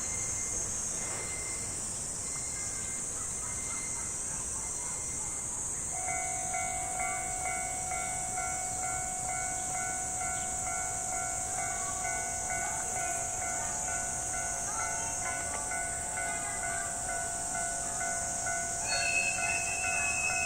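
Japanese level-crossing warning bell ringing in a fast repeating pattern over a steady high hiss, much louder from about six seconds in. A steady higher tone joins near the end.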